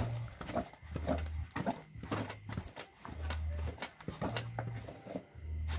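Stiff nshima (maize porridge) being stirred and pressed in an aluminium pot on a charcoal brazier with a cooking spoon: a run of soft thuds and knocks, about one stroke a second.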